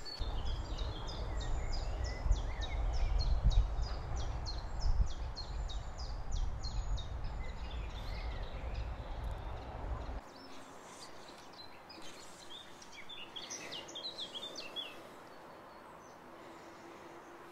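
Wind buffeting the microphone with a low rumble, and a bird singing a fast run of short, high, repeated notes. The rumble cuts off abruptly about ten seconds in. After that a bird sings another short burst of high notes over faint ambience.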